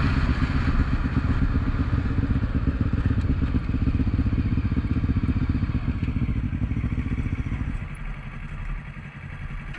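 Quad (ATV) engine running with a fast, even low pulsing. About eight seconds in the engine sound drops away to a quieter rumble.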